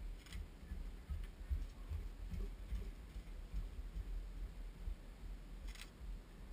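Low, uneven rumble of wind buffeting the camera's microphone, with a few soft ticks, the sharpest near the end.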